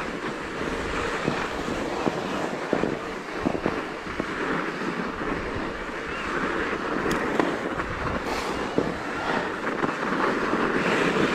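Fat-bike tyres rolling through snow, a steady crunching rush scattered with small clicks and knocks, with wind on the microphone.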